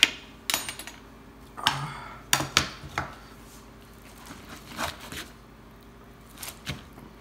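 Metal tongs clicking and knocking against a cast-iron skillet and a wooden cutting board as a ribeye steak is lifted out and set down, a handful of sharp clacks in the first three seconds. After that, a chef's knife cuts into the steak with a few soft taps on the board.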